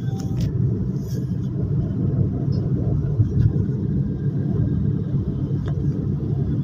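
Steady low rumble of a car on the move, heard from inside the cabin: engine and road noise while driving along a highway.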